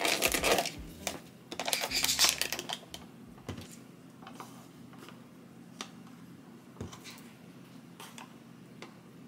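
Plastic yogurt tub being opened: two loud crinkly rustles in the first three seconds as the lid comes off and the foil seal is peeled back. After that, a wooden spoon scoops the yogurt with a few soft, scattered clicks.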